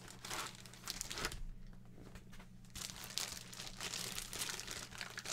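Mail packaging being opened by hand, crinkling and tearing in irregular spells with a short lull in the middle, over a steady low hum.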